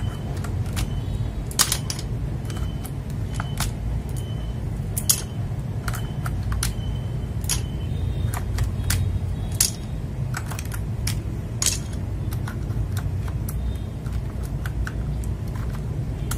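Plastic PBT keycaps clicking and clacking, irregular and sharp, as they are handled on a mechanical keyboard, over a steady low background rumble.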